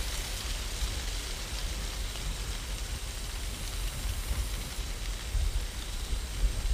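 Steady rushing noise: a hiss with a low rumble underneath.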